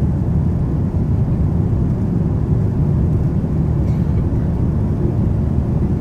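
Steady low rumble inside the cabin of a Boeing 787-9 airliner in flight on approach: engine and airflow noise heard from a window seat, even throughout with no sudden changes.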